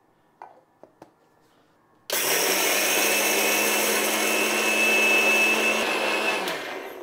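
Singer electric mixer grinder grinding coarse-grained sugar into powder. A few light clicks as the jar is set, then the motor starts abruptly about two seconds in, runs steadily with a high whine for about four seconds, and winds down near the end.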